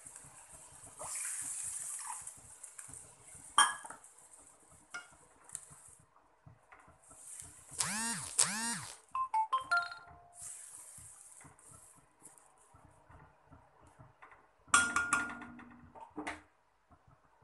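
Water and semolina sizzling and hissing in a hot kadai while a spatula stirs, scraping with a squeak about eight seconds in and clinking against the pan a few times, loudest near the end.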